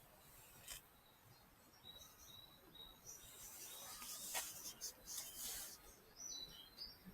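Faint bird chirps: short high notes in a loose series, with a few soft clicks and rustles among them.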